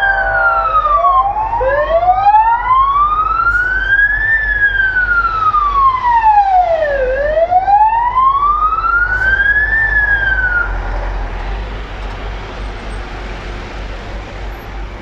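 Wailing sirens of a passing National Guard truck convoy, slowly rising and falling in pitch, with two sirens overlapping near the start. The wailing stops about ten seconds in, leaving steady street traffic.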